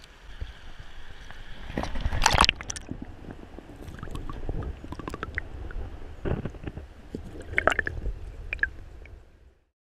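River water heard through a submerged camera: muffled sloshing and gurgling with scattered knocks and clicks, loudest as a burst of splashing about two seconds in.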